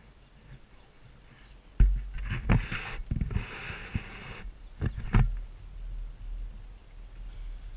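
Thumps and knocks on an aluminum boat hull as an angler shifts his weight and kneels at the gunwale to land a hooked walleye, with water splashing at the boat's side about three to four seconds in. The loudest thump comes just under two seconds in.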